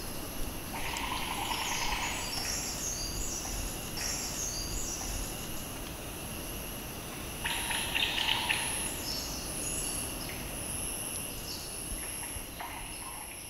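Forest ambience: insects singing in steady high tones, with bird calls coming and going over them, the strongest a few seconds before the end and about a second in.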